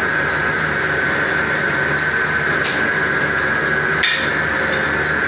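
Semi-automatic noodle-making machine running: a steady motor whine with a light tick about three times a second. Two sharp clicks break in, the second and louder one about four seconds in.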